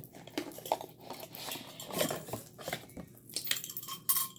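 A hard plastic soap dispenser and dish brush set being handled out of its paper packaging: irregular clicks, taps and rustles, with a sharp click near the end.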